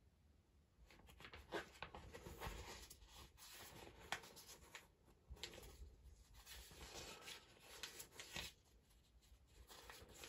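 Near silence with faint rustling and a few light clicks, coming in stretches of a second or two.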